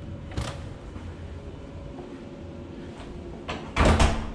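Low steady hum of the suite's room tone, with a short click about half a second in and a loud double thump near the end.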